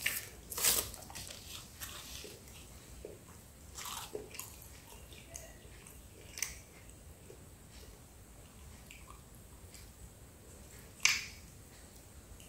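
A person biting into and chewing a Pizza Hut Melt, a folded toasted pizza crust with a cheesy filling: a few sharp bites at the start, a couple more midway and the loudest one near the end, with quiet wet chewing in between.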